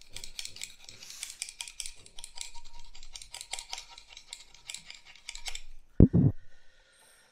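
Utility knife blade scraping hardened polyurethane foam off the head of a Teflon-coated foam gun in quick, rapid strokes. About six seconds in, a single loud dull thump as the gun and knife are handled.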